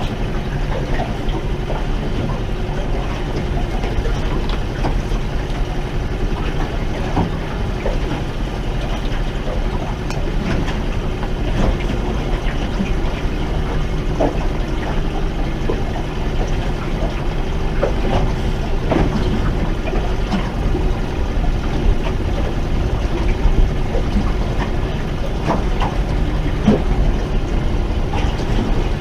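A boat motor running steadily at low trolling speed, with scattered small knocks and clicks over it.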